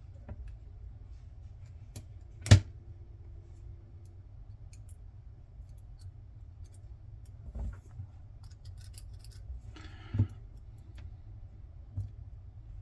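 Sharp metallic clicks and taps of small lock parts and tools being handled on a work surface, the loudest about two and a half seconds in, with a few more spaced out later and some faint ticking in between.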